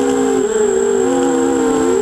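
FPV quadcopter's brushless motors whining as it flies, several tones sliding up and down in pitch as the throttle changes.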